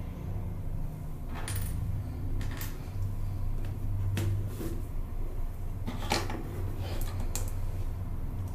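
An iPad Pro and its cardboard packaging being handled on a desk: scattered light clicks and taps, about six in all, over a steady low hum.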